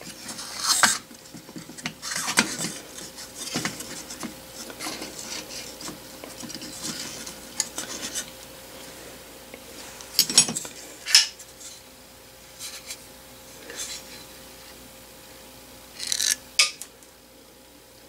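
Small brass model steam engine parts being handled and taken apart by hand on a bench: scattered clinks, scrapes and rubs of metal on metal. The clatters come in a few separate bunches, the loudest about a second in, near two and a half seconds, around ten to eleven seconds and around sixteen seconds.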